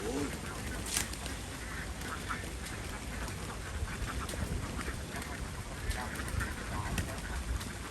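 Ducks quacking over a steady background noise, with a couple of sharp clicks about a second in and near the end.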